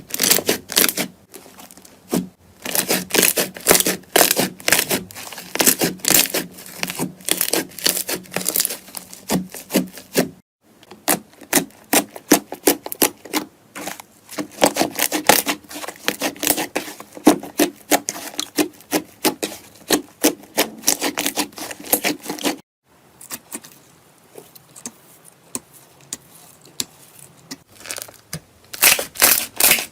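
Slime being squeezed, poked and stretched by hand, making dense runs of sharp clicking, popping and crackling. The sound changes abruptly twice as one slime clip gives way to the next, with a quieter, sparser stretch of clicks before it grows loud again near the end.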